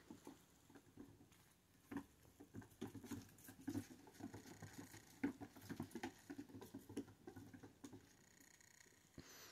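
A kitten's paws tapping on the floor as it spins in circles: a faint, fast, irregular run of soft taps, busiest from about two seconds in.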